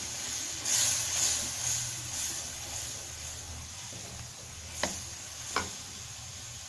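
Tomato masala sizzling in a metal pot while a plastic spatula stirs through it, the stirring loudest in the first couple of seconds. Two short sharp knocks near the end.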